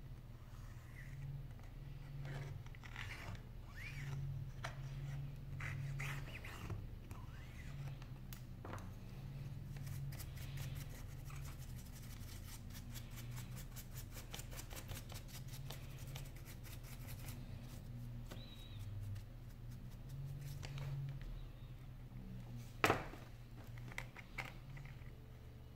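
Small handling sounds of an iPhone 5 being taken apart by hand: tool scratches and clicks on the phone's metal and plastic parts, a run of rapid even ticks in the middle, and one sharp click a few seconds before the end, over a low steady hum.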